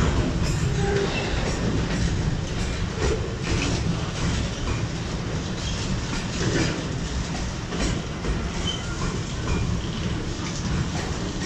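Freight wagons loaded with shipping containers rolling past on the track: a steady rumble of steel wheels with clatter over the rail joints and a few short, high squeaks.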